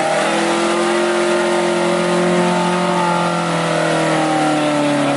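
Off-road jeep engine held at high revs under load in mud, the pitch steady and sagging slightly toward the end.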